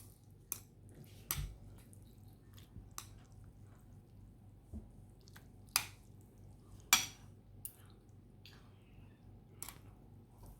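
Close-up eating sounds of Korean cold noodles (naengmyeon): scattered sharp clicks and wet, squishy chewing and slurping, the loudest click about seven seconds in.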